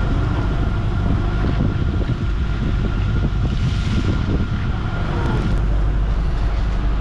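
Steady low drone of a fishing boat's onboard machinery running, with wind rushing on the microphone.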